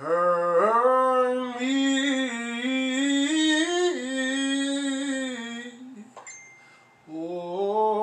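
A man singing unaccompanied: one long held phrase that slides up and down through runs for about six seconds, a short pause, then a new phrase beginning near the end.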